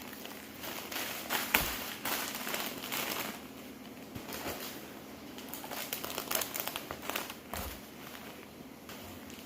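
Irregular crinkling and rustling in two busy stretches, with scattered sharp clicks and a couple of dull knocks.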